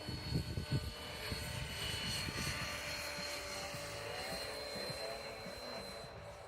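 Electric Align T-Rex 550X radio-control helicopter in flight: a steady high whine from its motor and drivetrain over the rotor noise, with low thumps of wind on the microphone in the first second.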